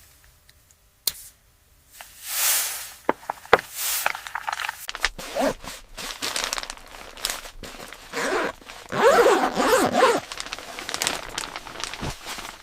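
Gear being packed: a bag zipper pulled several times amid rustling, crinkling and small knocks, with the longest, loudest zip about nine seconds in.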